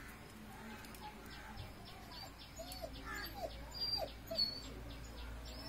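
A dog whimpering faintly: a handful of short rising-and-falling whines bunched together about halfway through, over a faint, rapid run of high ticks.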